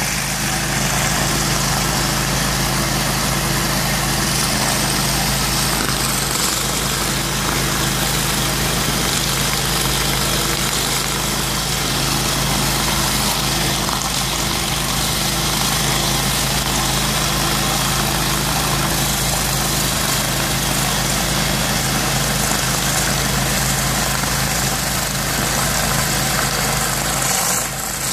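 Hot-water pressure washing with vacuum recovery: a steady engine-driven drone under a constant hiss of water jetting from a surface cleaner spinning over brick pavers, with the recovery vacuum drawing the wash water away. It dips slightly near the end.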